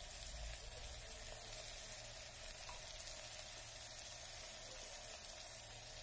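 Chopped green beans and potatoes frying in hot mustard oil in an electric kettle: a steady, even sizzle.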